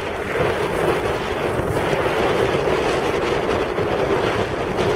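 Strong wind buffeting the microphone: a steady, loud rushing with no break.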